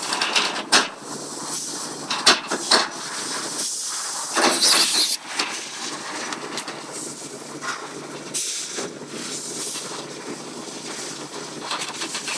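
An angry bird hissing in several short, noisy bursts, the longest and loudest about four to five seconds in, with a few clicks between.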